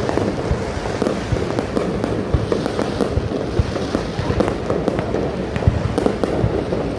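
Fireworks bursting in rapid, irregular succession: many sharp bangs and crackles overlapping one another over a continuous rumble.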